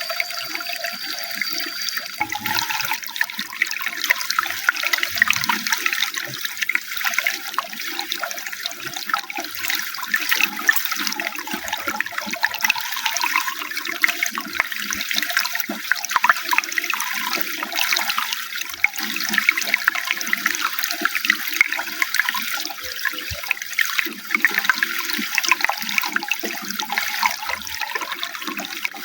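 Running water splashing and gurgling steadily.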